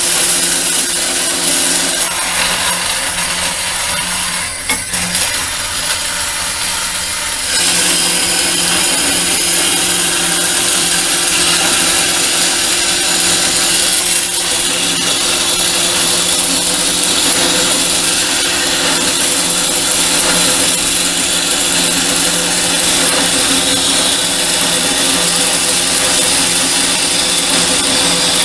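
Converted 12-inch Craftsman band saw running. About seven seconds in, its blade bites into a piece of steel bed-frame rail, and a steady cutting noise continues over the motor's hum.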